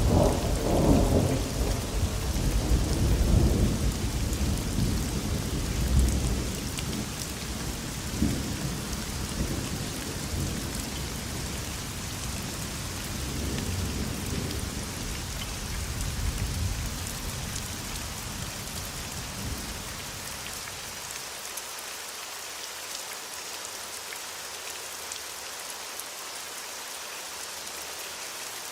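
Steady rain with rolling thunder. A long low rumble swells several times in the first six seconds, then fades away by about twenty seconds in, leaving only the hiss of the rain.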